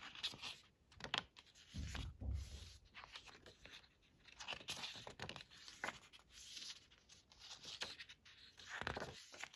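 Pages of a hardcover photobook being turned by hand: repeated papery rustles and swishes, with soft handling bumps about two seconds in and again near the end.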